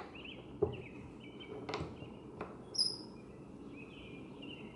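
Songbirds chirping in short repeated phrases, with a few light knocks in between.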